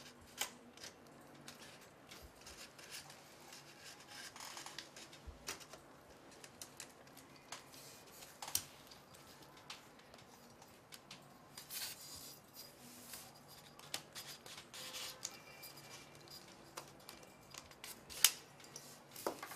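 Carbon-fibre gimbal tubes and frame clamps handled by hand: scattered clicks, taps and short rubbing scrapes as the tubes are worked and slid into the clamps, with a sharp knock near the end.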